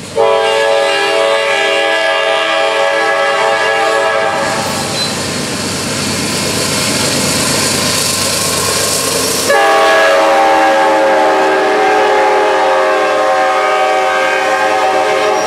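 Norfolk Southern GE C40-9W locomotive's air horn blowing two long, very loud blasts. The first lasts about four seconds; the second starts about nine and a half seconds in and is still sounding at the end. Between the blasts comes the clatter of the passing train's wheels on the rails.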